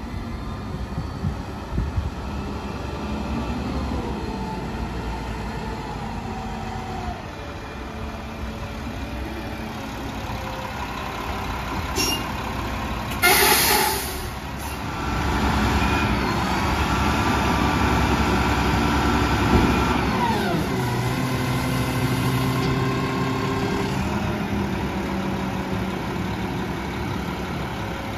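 Mack LR side-loader garbage truck approaching and pulling up, its engine rising and falling in pitch. A short, loud air-brake hiss comes about halfway through, then the engine runs louder with whining tones for several seconds before dropping back to a steadier idle.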